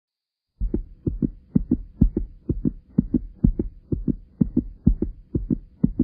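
Heartbeat sound effect: paired low thumps in a steady 'lub-dub' rhythm, about two beats a second. It starts about half a second in and cuts off suddenly at the end.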